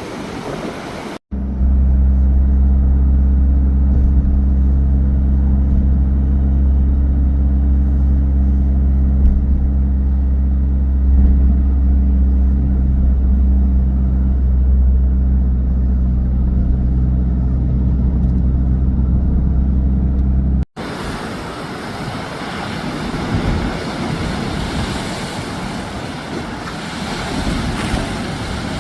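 A steady, loud low drone of an idling engine, several stacked hum tones, starting and stopping abruptly about a second in and near two-thirds through; on either side, broad rushing noise of wind and surf.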